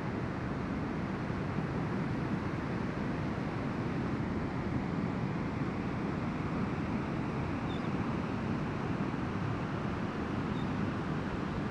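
Ocean surf breaking on a beach: a steady, even roar of waves, with a few faint high chirps in the second half.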